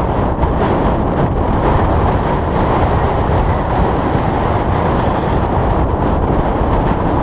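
Wind rushing over the microphone during a paraglider flight in strong wind: a loud, steady roar of noise with no tones or beeps in it.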